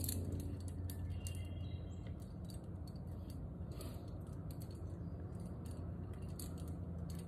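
Light metallic clinking of carabiners and quickdraws on a climbing harness as the climber is lowered down the rock, scattered sharp clicks over a steady low hum.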